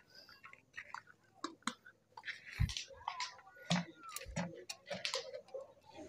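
An emu pecking grain from a feed bucket: faint, irregular clicks and taps.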